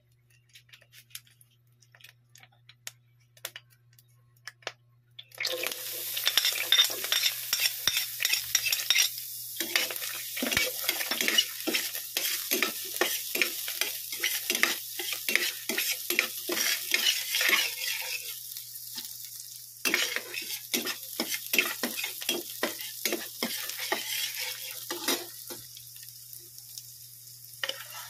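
Hot oil ticking faintly in a stainless steel pan, then chopped red onion and garlic hit the oil about five seconds in and sizzle loudly. A spatula stirs and scrapes against the pan in quick repeated strokes, and the sizzle dies down near the end.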